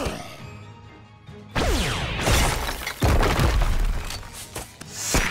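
Cartoon action-scene music with fight sound effects: sharp crashing hits about one and a half seconds in, again at about three seconds and just before the end, the first followed by falling sweeps.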